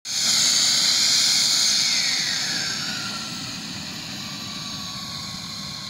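Model jet's small turbine engine running with a loud high whine. Its pitch glides down and it grows quieter over the first three seconds, then it settles into a steady whine.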